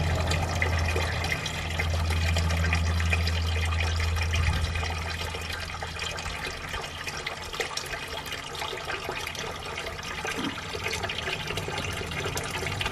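Water draining out of the open oil-pan drain of a Dodge SRT-4 engine into a catch pan, with a low hum over the first few seconds. The stream thins after about five seconds. The crankcase holds straight water instead of oil, the sign of a water-flooded engine.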